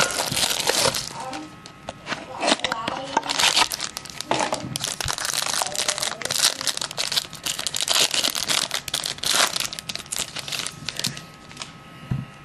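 Shiny trading-card pack wrapper being torn open and crinkled by hand: a dense run of irregular crackles that thins out near the end.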